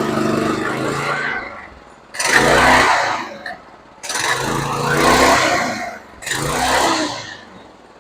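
Small go-kart engine revved up and let back down four times in a row, driving the newly fitted belt through the torque converter as a test run with the belt cover off.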